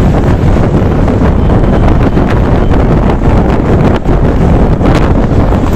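Loud, steady wind buffeting on the microphone of a scooter rider on the move.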